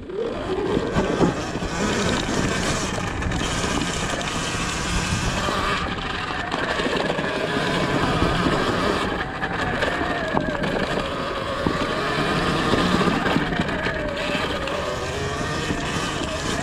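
Surron Ultra Bee electric dirt bike being ridden on a dirt and leaf-strewn trail: a whine from the electric motor and chain drive that rises and falls with speed, over the rumble of knobby tyres on dirt and rocks. The sound starts abruptly as the bike pulls away.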